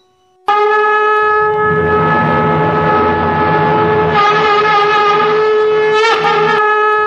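Conch shell (shankh) blown in one long, loud, steady blast that starts abruptly about half a second in, with a brief wobble in pitch about six seconds in.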